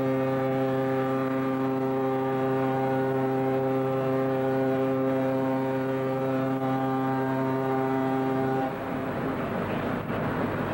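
Ship's horn sounding one long, deep, steady blast that cuts off suddenly about eight and a half seconds in, leaving a steady rushing noise.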